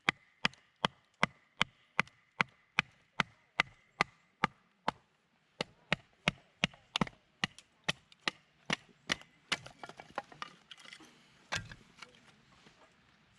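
Knife chopping on a wooden cutting board: a steady run of sharp knocks, about two and a half a second, a short break, a second run, then looser, uneven knocks near the end with one louder knock.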